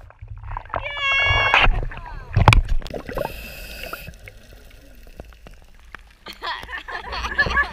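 Sea water sloshing and splashing around an action camera bobbing at the surface, with a drawn-out cheering shout about a second in and a sharp splash at about two and a half seconds. A bubbling hiss follows while the camera is under water, and voices chatter and laugh near the end.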